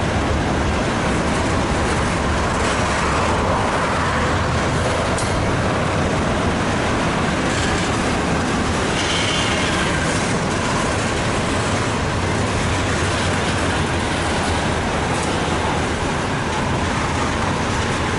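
BNSF double-stack intermodal train rolling steadily past, the wheels of its loaded container well cars running over the rails in a continuous, even noise.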